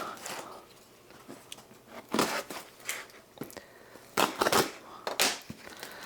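Heavily taped cardboard shipping box being opened: several short ripping and scraping sounds as the packing tape is cut and pulled.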